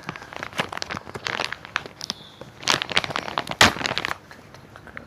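Plastic wrapping crinkling and crackling as it is handled, in irregular bursts that die down near the end.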